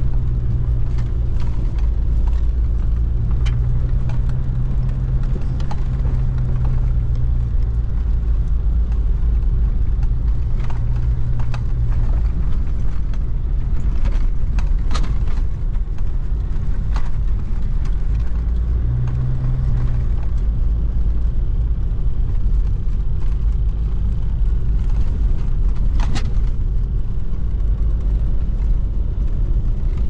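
4x4 vehicle driving on a rough unpaved logging road: a loud, steady low rumble of engine and tyres, with knocks and rattles now and then from the rough surface. The engine hum eases off about twelve seconds in while the road rumble goes on.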